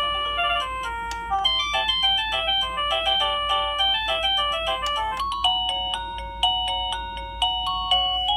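Wireless doorbell receiver playing its electronic chime melodies: a quick tune of short beeping notes gives way about five seconds in to a different tune of slower, longer-held notes as the next of its selectable tones plays.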